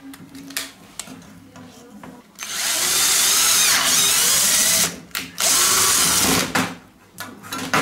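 Cordless drill boring new screw holes into a shower door's bottom frame rail, beside screw holes that have stripped. It runs in two bursts: a long one starting about two and a half seconds in, its motor pitch dipping and rising, then a shorter one about a second later.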